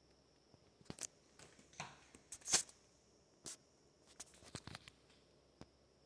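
A string of short, sharp clicks and light taps, loudest about two and a half seconds in, over a faint steady high whine.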